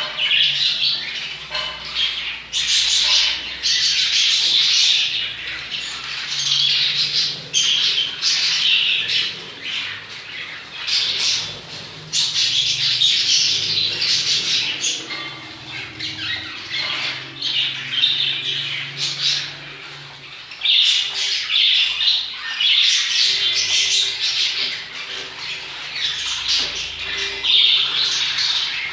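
A flock of caged lovebirds chattering and squawking in shrill, rapid bursts that rise and fall, with short lulls every few seconds.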